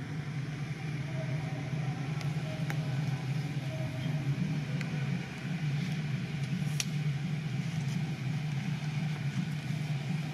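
Steady low hum of an engine running, with a few faint clicks scattered through it.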